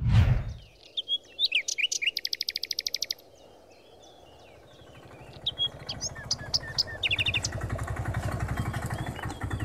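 A sudden swoosh right at the start, then birds chirping, with a fast trill a couple of seconds in. From about halfway, an auto-rickshaw's engine approaches, its low running pulse growing steadily louder.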